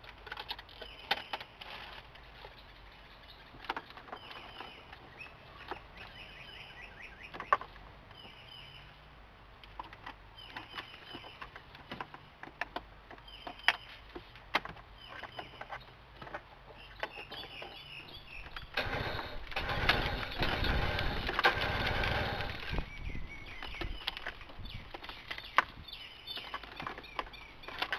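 Wiring harness and plastic connectors being handled behind a car's dashboard: scattered clicks and rustles, with birds chirping outside. About two-thirds through, a louder patch of noise lasts around four seconds.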